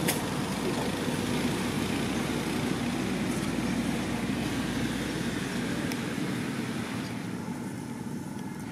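Steady low rumble of motor-vehicle traffic, its deepest part fading about six seconds in.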